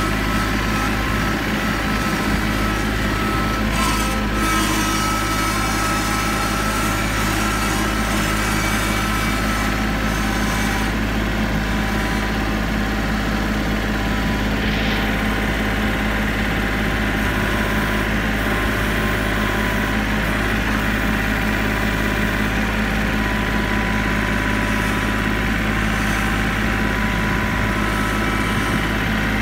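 Kubota L3901 tractor's three-cylinder diesel engine running steadily, heard close up from the operator's seat.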